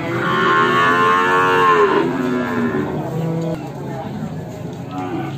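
Cattle mooing: one long moo rising and falling over about two seconds, then shorter, lower moos.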